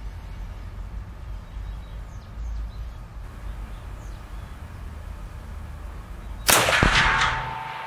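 A single shot from a Pedersoli 1886 Boarbuster Mark II lever-action rifle in .444 Marlin: one sharp, loud crack about six and a half seconds in, echoing and dying away over about a second in the indoor range, over a low steady hum.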